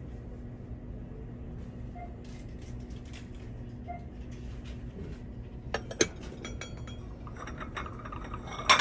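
Ceramic dishware clinking and knocking: two sharp knocks about six seconds in, then a run of clinks near the end, the loudest just at the close, over a steady low hum.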